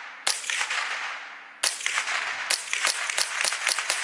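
Remington 597 semi-automatic .22 LR rifle firing CCI Mini Mag rounds: a shot about a quarter second in, another about a second and a half later, then a quicker string of shots near the end, each trailing off in echo. The action cycles every round without a stovepipe or failure to feed.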